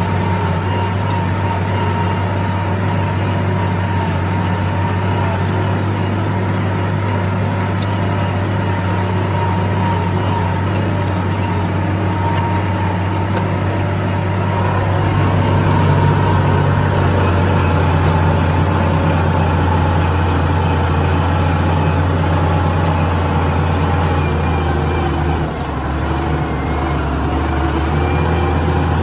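Farm tractor engine running steadily under load as it pulls a disc harrow through the soil, a deep, even drone that dips briefly near the end.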